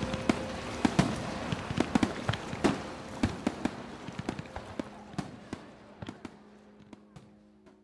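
Fireworks going off: irregular sharp bangs and crackles over a hiss. They thin out and fade away toward the end.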